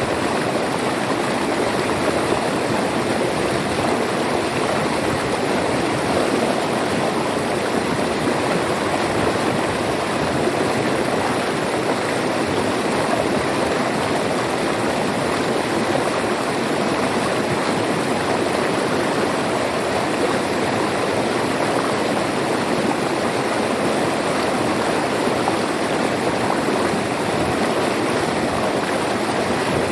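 River water flowing and rushing over stones, a steady, even sound.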